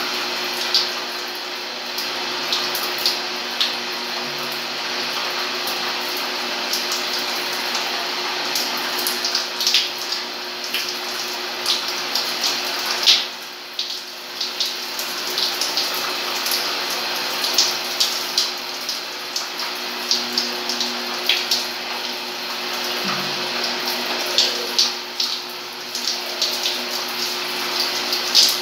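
Shower running steadily, water spraying and splattering, with many sharp splats and a low steady hum underneath. The spray dips briefly about halfway through.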